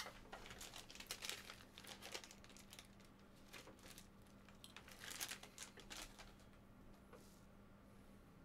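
Faint crinkling and crackling of packaging being handled, in two bursts of a few seconds each.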